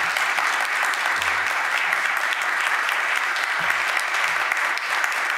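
An audience applauding: many hands clapping, holding at a steady level.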